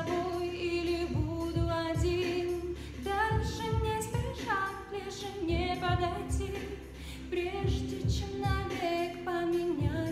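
A woman singing a Russian pop ballad over a backing track with a steady beat.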